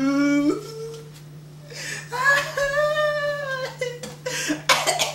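A man crying aloud in pain from a knocked knee, in drawn-out wails. One wail is held at the start, and a longer, higher-pitched wail comes about two seconds in.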